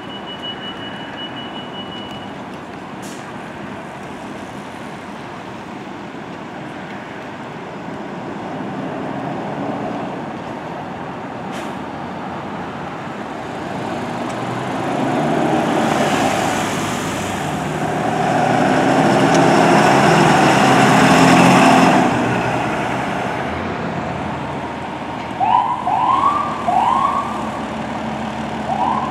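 A rescue ambulance's engine runs as it drives out and passes close, swelling and then fading. Near the end come a few short rising siren whoops in quick succession, emergency vehicles starting their warning signals as the fire engine pulls out of the station.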